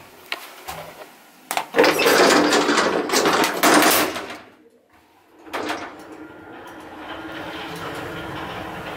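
Passenger elevator car doors sliding shut, a loud noisy run of about two and a half seconds after a few clicks. After a brief hush, the modernised elevator's drive starts the car moving down with a steady hum.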